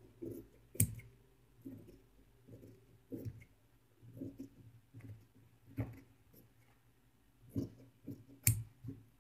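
Tailor's shears cutting through fabric in a series of short snips, roughly one a second, with a couple of sharper clicks of the blades.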